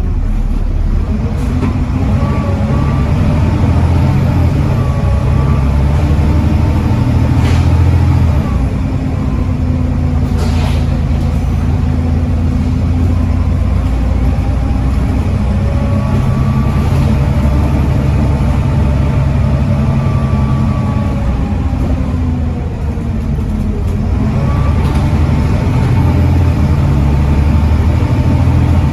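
Volvo B7TL double-decker bus's Volvo D7C 7.3-litre diesel engine running under load through its ZF Ecomat automatic gearbox, with the engine note shifting in pitch as it goes. A couple of brief knocks come about a third of the way in. The engine eases off a little about three-quarters of the way through, then builds again.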